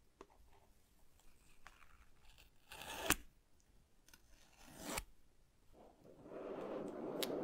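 Paper seal tabs being peeled off a Google Pixel 7 cardboard box: two pulls, each a short tearing rasp ending in a sharp snap, about three and five seconds in. Near the end the box lid starts sliding up off the base with a steady rubbing hiss of cardboard on cardboard.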